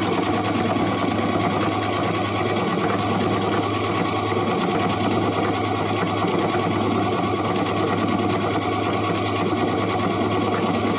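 Husqvarna Viking Epic 95Q computerized sewing machine running steadily, its needle stitching rapidly as it sews out a programmed lettering sequence.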